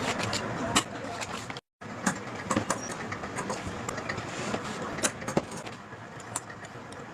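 Workshop noise: a steady mechanical hum with irregular clicks and knocks, broken by a brief cut to silence about one and a half seconds in.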